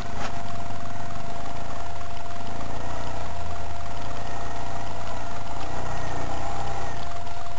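ATV engine running steadily while under way, a low drone with a thin steady whine over it.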